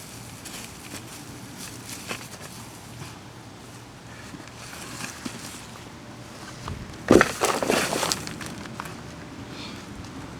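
Potting soil and potatoes spilling out as a potato-growing tub is tipped over and emptied, loudest in a dense rush of crackles for about a second, seven seconds in. Soft scrapes and rustles of hands working the soil around it.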